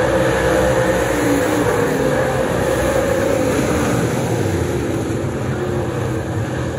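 Street stock race car engine running on track under racing load, its note drifting up and down.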